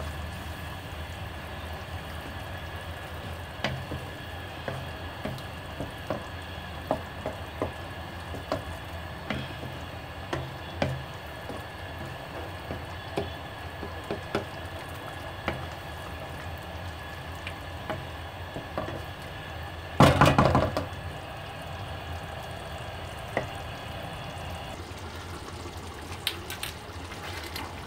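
Thick butter chicken gravy bubbling in a non-stick wok, with a wooden spoon stirring and knocking against the pan in scattered taps over a steady low hum. A louder burst of noise comes about two-thirds of the way through.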